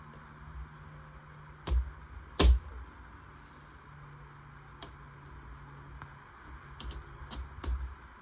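Hard plastic LEGO Technic parts clicking and knocking as they are handled and pressed together: two sharp clicks about two seconds in, then a few lighter ticks near the end.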